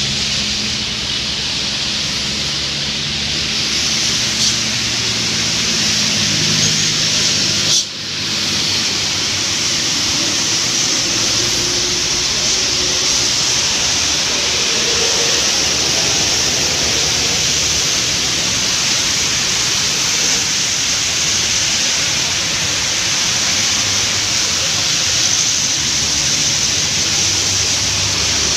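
Heavy rain and tyres hissing through water on a wet road as traffic passes, a steady loud wash of spray noise. A vehicle engine hums under it for the first several seconds and again near the end as a coach approaches, and the sound briefly drops out about eight seconds in.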